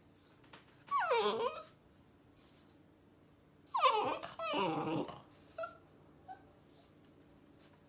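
Rottweiler puppy whining twice, each cry sliding down in pitch: a short one about a second in, then a longer, louder one around four seconds in. A few faint short sounds follow.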